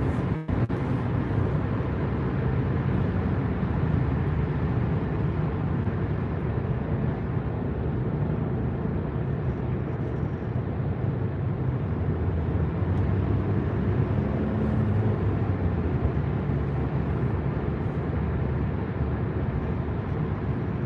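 Steady low rumble of road and engine noise inside a car's cabin at highway speed. The sound drops out for an instant about half a second in.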